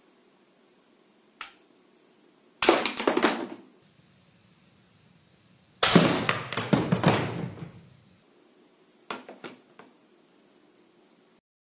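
Plastic toy guns clicking and rattling in rapid bursts: a single click, then three bursts, the longest about two seconds and the loudest.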